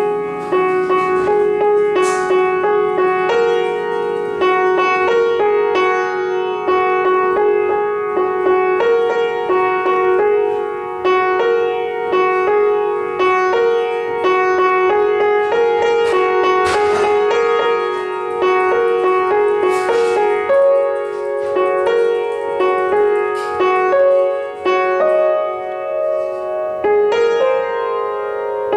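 Solo piano music: a continuous run of notes and chords at an even loudness.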